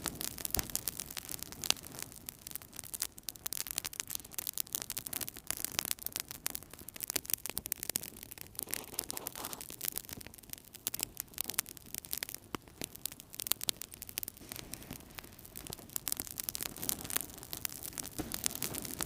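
Wood fire burning in a fireplace: a dense, irregular stream of small crackles and pops over a soft steady hiss of the flames.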